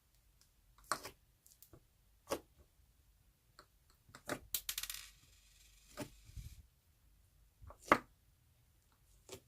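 Handmade slime being pressed and pulled: a string of sharp sticky pops and clicks a second or two apart, with a short crackling run about halfway through and the loudest pop near the end.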